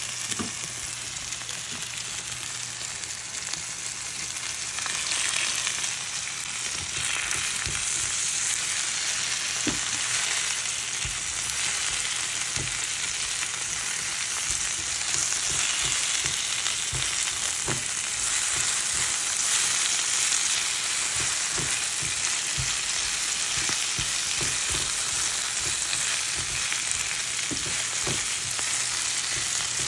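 Spinach, zucchini and onion sizzling in oil in a nonstick frying pan while a silicone spatula stirs them, with scattered light knocks of the spatula against the pan. The sizzle gets a little louder about five seconds in.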